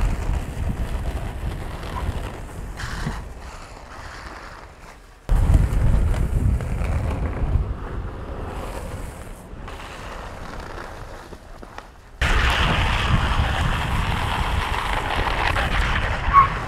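Wind rushing over the microphone and the rumble of longboard wheels rolling fast on asphalt, changing abruptly twice. For the last few seconds a louder, steady hiss of urethane wheels sliding sideways across the pavement takes over, with a brief squeal near the end.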